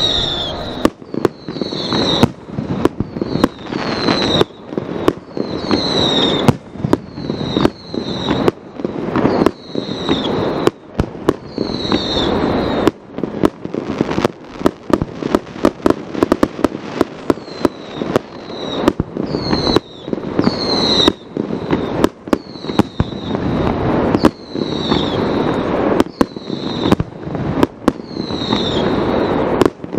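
Fireworks display: aerial shells bursting in quick succession, a steady run of sharp bangs with crackling between them. Many bursts come with a short falling whistle.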